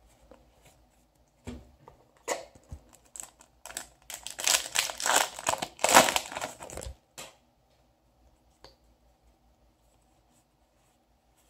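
Foil trading-card booster pack being torn open and crinkled, a dense crackling tear lasting about three seconds from about four seconds in. Before it come a few light clicks of cards being handled.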